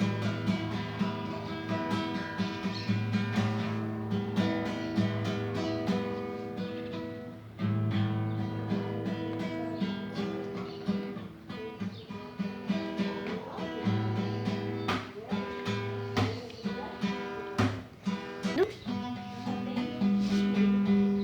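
Acoustic guitar (violão) played by hand, with chords strummed and notes plucked in a steady flow and the chords left ringing between strokes.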